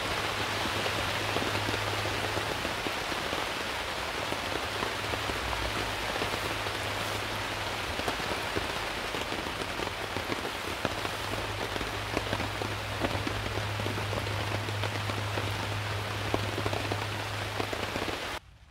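Steady rain falling, with many individual drops ticking close by, over a steady low hum. The sound cuts off abruptly just before the end.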